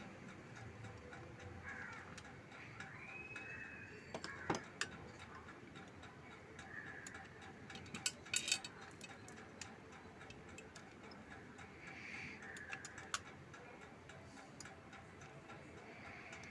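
Faint, scattered clicks and taps of small parts and a screwdriver as a sewing machine foot pedal is taken apart to free its wires, with a small cluster of sharper clicks about eight seconds in.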